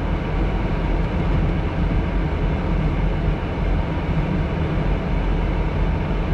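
Steady low rumble inside a Jeep's cabin with the engine running, no radio playing.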